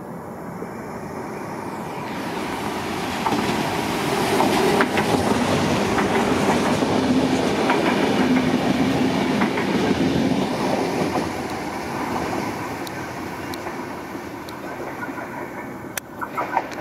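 Renfe electric regional train running past on the tracks, wheels clattering over the rail joints. It grows louder as it approaches, is loudest while the carriages go by, then fades as the rear passes, with a few sharp wheel knocks near the end.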